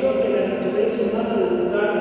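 A man speaking, his voice picked up by the microphone at the ambo: only speech, with no other distinct sound.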